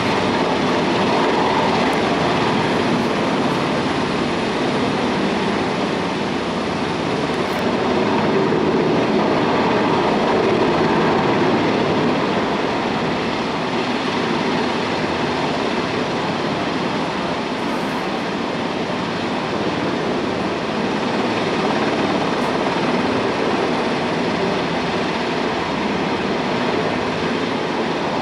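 Government Flying Service helicopter running, a loud, steady noise of engine and rotor that holds unchanged throughout.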